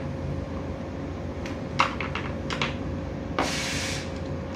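Light plastic clicks and taps as electrical switchgear and wiring (contactor, push buttons, rotary selector switch) are handled on a workbench, in a cluster about a second and a half in. Near the end comes a sharper click followed by a brief rustling scrape, over a steady background hum.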